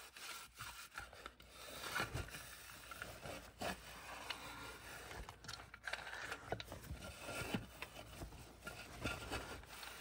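Cotton towel rubbing and wiping around the inside of a clear plastic food processor bowl: a faint, irregular scrubbing with a few light knocks of the bowl.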